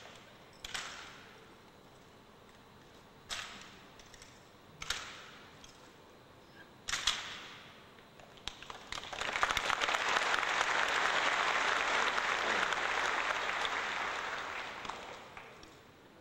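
A few sharp clacks of rifle drill, a second or two apart. Then, about nine seconds in, audience applause rises, stays loud for several seconds and fades away near the end.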